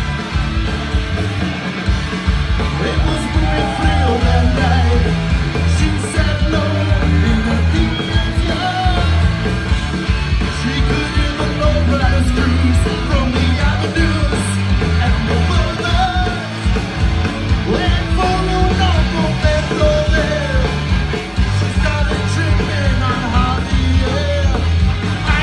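Punk rock band playing loud, with a singer singing and yelling over the band and a heavy low end throughout.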